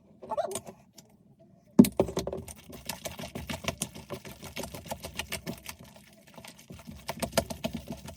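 Glue-based slime being kneaded and squeezed by hand, giving off rapid wet clicks and crackles. The sound starts abruptly about two seconds in, after a near-silent pause.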